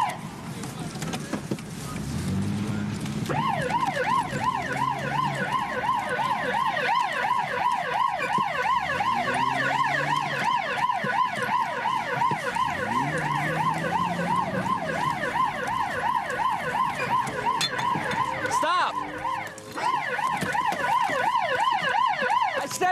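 Police siren in fast yelp mode, its pitch rising and falling several times a second. It starts a few seconds in, with a brief break near the end.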